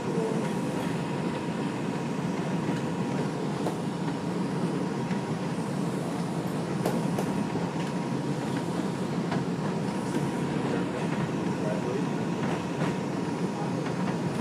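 R142 subway car running at speed on elevated track, heard from inside the car: a steady rumble of wheels on rail with scattered sharp clicks.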